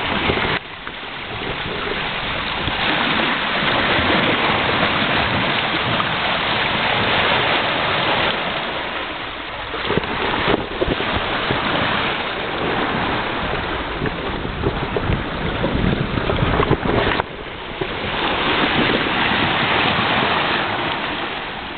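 Bow wave rushing and splashing along a Beneteau 36.7 sailboat's hull under sail, with wind buffeting the microphone. The rush swells and eases, with brief dips.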